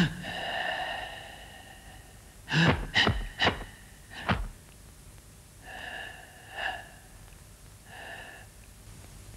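A man's forceful, controlled breathing while performing a Hung Gar (Hung Kuen) hand form: a long drawn-out hissing breath, then a run of sharp puffed exhalations, then two or three shorter hissing breaths near the end.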